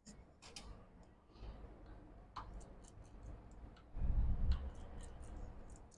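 Light, scattered clicks and ticks of a screwdriver and small screws being worked on a MacBook Pro's case while it is opened, with a dull low bump of handling about four seconds in.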